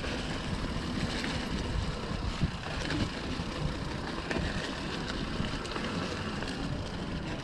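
Mountain bike rolling down a dry dirt single track: tyres crunching over dirt and loose stones, with scattered rattles and clicks from the bike, over a steady rumble of wind on the microphone.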